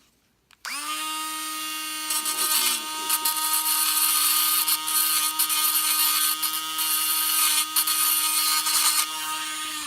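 Small high-speed rotary tool spinning up, then grinding a lock pin down to length with a scraping, gritty sound over its steady whine, and spinning down at the end.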